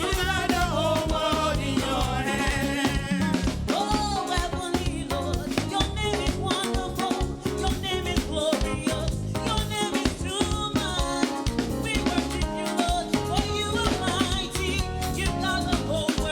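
Live gospel praise-and-worship music: voices singing over a band with drum kit and percussion keeping a steady, upbeat rhythm.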